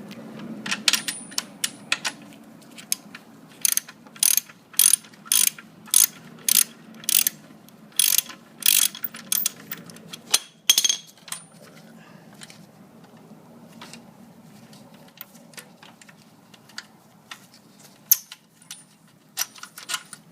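Ratchet wrench clicking as it backs out an exhaust mounting bolt on a motorcycle. The clicks come in quick strokes about twice a second for several seconds, then turn scattered and sparse.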